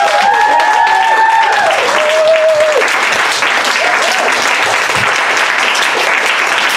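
Audience applauding steadily, with a few voices whooping over the clapping in the first three seconds.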